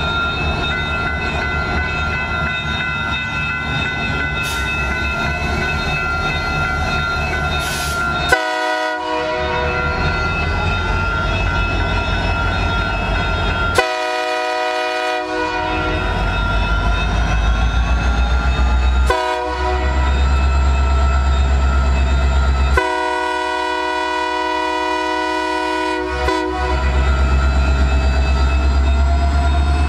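Freight train led by EMD SD60M diesel locomotives passing close by, sounding its horn in the grade-crossing pattern: two long blasts, a short one, then a long one held for several seconds. The diesel engines rumble steadily under the horn and grow louder as the locomotives come alongside near the end.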